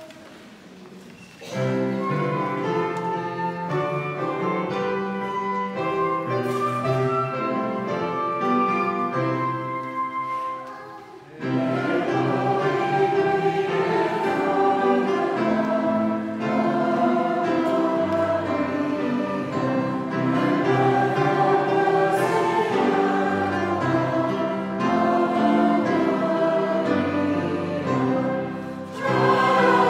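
A church congregation singing a hymn with pipe organ accompaniment. It starts about a second and a half in, with short breaks between phrases near 11 and 29 seconds.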